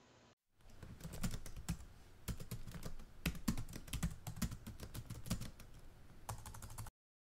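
Computer keyboard typing sound effect: a quick, irregular run of key clicks that begins about half a second in and stops abruptly about half a second before the end.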